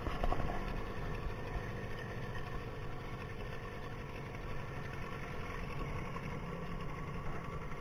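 Fishing boat's motor running steadily as the boat moves across the lake.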